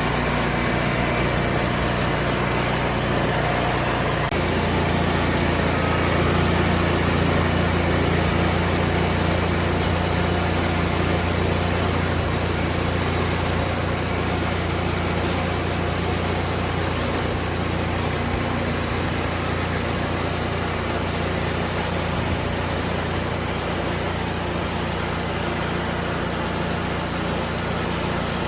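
Sawmill engine running steadily while slabbing a red oak log; its note changes about four seconds in and then holds steady.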